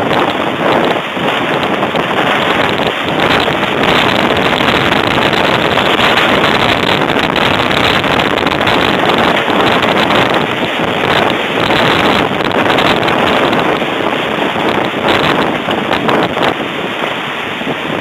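Violent thunderstorm wind with driving rain buffeting a security camera's microphone: a loud, unbroken rushing noise that surges with the gusts.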